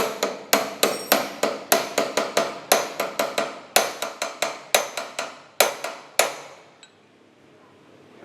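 Hammer striking metal in a fast run of sharp taps, about four a second, tapping the steering-column lock nut of a Vespa VBB tight. The tapping stops about six seconds in.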